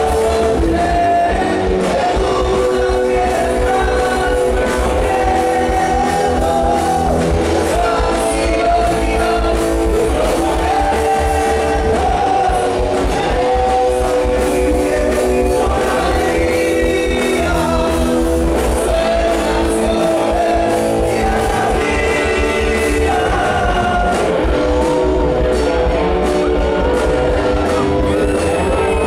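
Live rock band playing loud through the stage sound system: a male singer sings into a microphone over electric guitar and drums.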